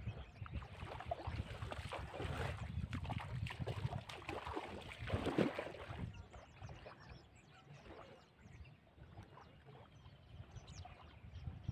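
Shallow water splashing and sloshing in irregular bursts, busier for the first half and quieter after about six seconds.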